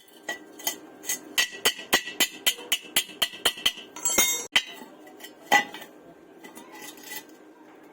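Metal being struck over and over with a ringing clink, about four strikes a second, likely a hammer on the welded workpiece. A short rattling burst follows, then one last, louder strike.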